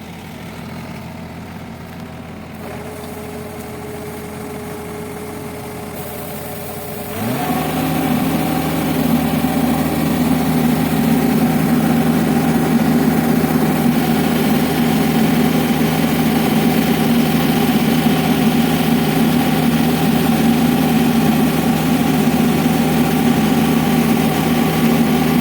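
Yanmar combine harvester's diesel engine running, growing louder over the first few seconds. About seven seconds in it revs up sharply and then runs steadily at the higher speed.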